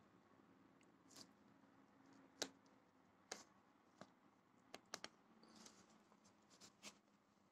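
Faint clicks and cloth rustles as fingers handle a 1/6-scale action figure's quilted jacket, pulling it open at the buttons. There are about eight small, sharp clicks, the loudest about two and a half seconds in.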